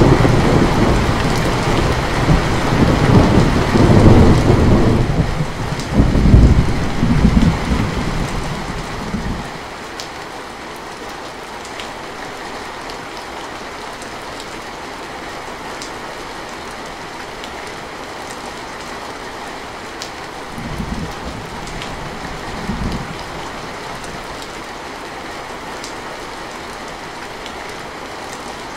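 Thunder rumbling loudly over heavy rain on a metal roof for the first nine or ten seconds, then steady rain on the roof with two brief low rumbles about two-thirds of the way through.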